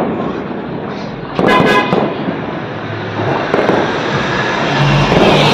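Diwali firecrackers going off around the neighbourhood, a continuous din of distant bangs and rumble with sharper cracks, and a brief horn-like tone about a second and a half in.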